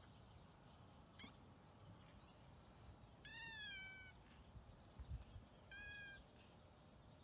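Orange tabby cat meowing softly twice, a longer meow that falls slightly about three seconds in and a shorter one near the end, with a faint short chirp about a second in. A soft low thump comes just before the second meow.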